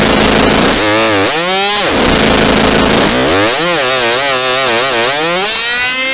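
Walkie-talkie static with a loud pitched whistle gliding up and down through the hiss. The whistle swoops up a little under two seconds in, drops away, then returns and warbles before settling into a steady high tone near the end.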